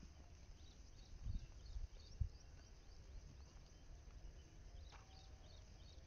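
Quiet outdoor background: a steady low rumble with a few dull thumps between one and two seconds in, and faint, scattered high chirps. No bleating is heard.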